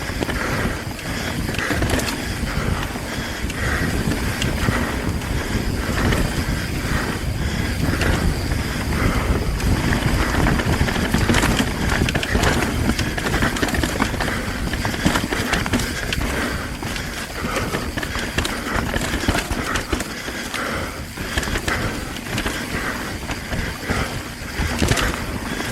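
Mountain bike rolling fast down a rough trail: tyres rumbling over dirt and rock, with frequent sharp clattering knocks and rattles from the bike.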